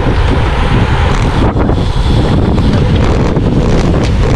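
Wind buffeting the microphone of a camera riding on a road bike at racing speed: a loud, steady, rumbling rush with no let-up.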